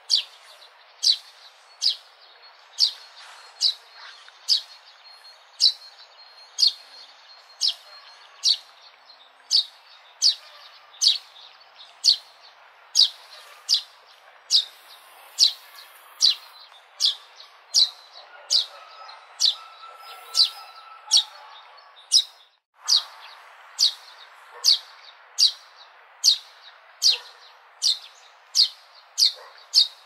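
A sparrow chirping over and over: single short, sharp chirps at a steady pace of a little more than one a second. The sound cuts out for an instant about three-quarters of the way through.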